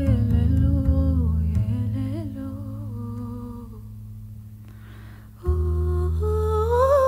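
A woman humming wordlessly over low upright double bass notes. The voice and bass fade down over a few seconds, a breath is heard, and about five and a half seconds in a new low bass note and the humming start again, the voice sliding up near the end.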